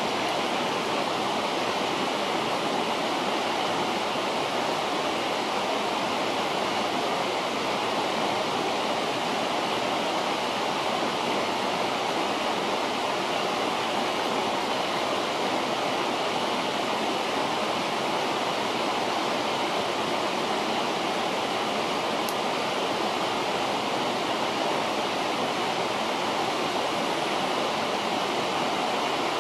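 A river rushing steadily, with one faint click late on.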